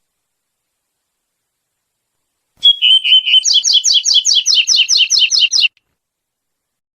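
Double-collared seedeater (coleirinho) singing one loud phrase of the 'tuí-tuí' song type. It starts about two and a half seconds in with a short held note, then runs into a fast series of about six or seven repeated sharp notes a second, and stops abruptly after about three seconds.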